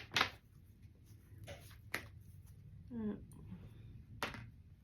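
Tarot cards being handled and laid on a table: a few sharp taps and clicks spaced a second or two apart, with a brief murmur from the reader between them.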